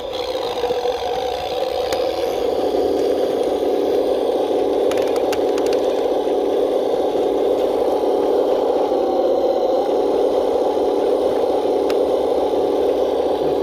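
Electric motor and gearbox of a 1/12-scale KrAZ 260 RC crawler truck running steadily under load as it crawls over rocks and mud. A few sharp clicks sound about five seconds in.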